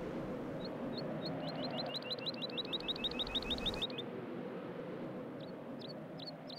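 A small bird calling short down-slurred chirps, first a few single notes, then a fast run of about eight a second that stops abruptly, then a few scattered notes near the end, over a steady open-air hiss.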